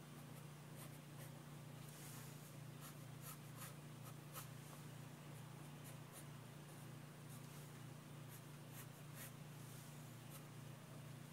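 Faint pencil strokes scratching on paper, short and irregular as lines are sketched, over a steady low hum.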